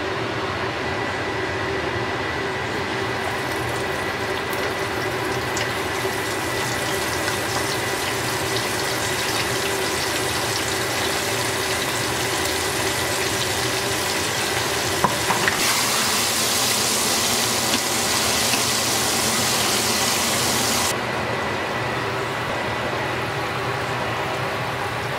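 Flour-coated round scad deep-frying in a pot of hot oil, a steady sizzle over a steady hum. The sizzle grows louder and hissier for about five seconds past the middle, with a few clicks just before that stretch.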